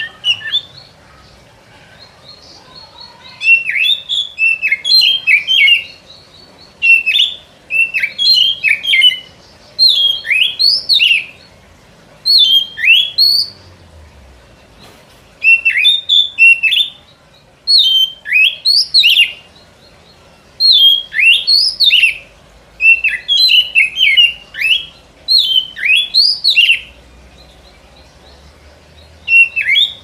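Oriental magpie-robin song played as a lure call: loud, repeated phrases of quick sweeping whistled notes, each phrase a second or two long, with short pauses between.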